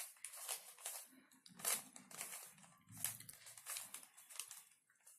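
A Rubik's cube being twisted by hand: an irregular run of quick plastic clicks and scrapes as its layers are turned.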